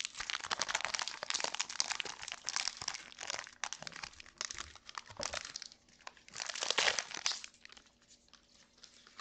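Foil wrapper of a Pokémon Trick or Trade booster pack crinkling as it is handled, in dense crackly bursts with the loudest about seven seconds in, dying away near the end.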